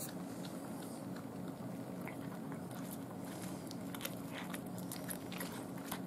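A cat chewing and crunching a whole raw day-old chick, with irregular crisp bites over a steady low hum.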